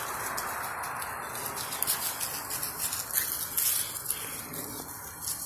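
Two small dogs, a boxer puppy and a fluffy terrier-type, scampering and scuffling on grass and dry leaves, with quick light rustles and patters from about two seconds in. Under them runs a steady background hiss that slowly fades.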